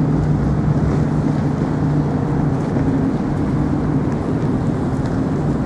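Steady low engine drone with wind noise on the microphone.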